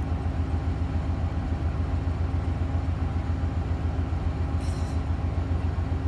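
A motor vehicle's engine idling steadily with a low pulsing hum, and one brief high-pitched sound near the end.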